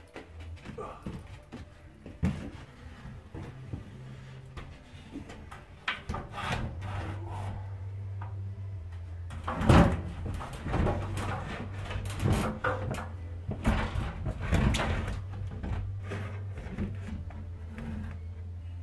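Irregular knocks, scrapes and rubbing of someone moving about and handling things on wooden attic framing, with a steady low hum coming in about seven seconds in. The sharpest knock falls near the middle.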